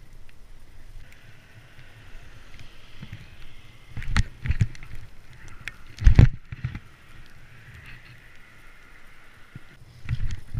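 Bike ride on wet pavement heard from a body-mounted action camera: tyre and wind noise with a steady whirr, broken by sharp thuds of the bike landing, two about four seconds in, the loudest about six seconds in, and more near the end.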